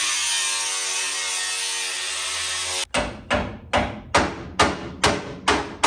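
Angle grinder cutting steel, its pitch sagging slightly under load, cuts off abruptly about three seconds in. A run of sharp, evenly spaced knocks follows, about two a second.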